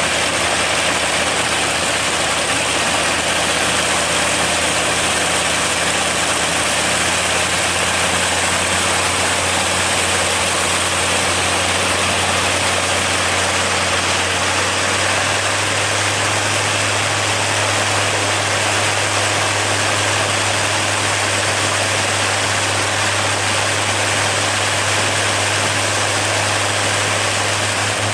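Radial aircraft engine running steadily with its propeller spinning: a constant engine drone under a dense rushing noise, the low hum growing stronger about halfway through.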